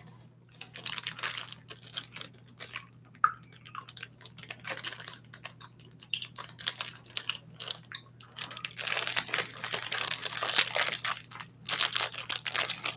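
Clear plastic snack wrapper being crinkled and torn open by hand. Scattered crackles at first, then dense, nearly continuous crinkling for the last few seconds.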